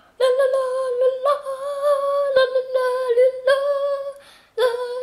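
A person humming a slow tune in long, steady held notes, fading out about four seconds in before one more note begins near the end.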